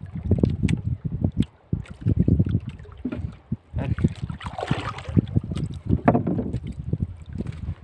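Water splashing and lapping against a small wooden outrigger boat, in uneven surges with short knocks. A louder splash comes about four to five seconds in. Wind buffets the microphone.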